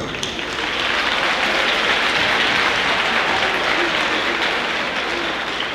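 A large audience applauding: a steady wash of clapping that swells over the first second and eases a little near the end.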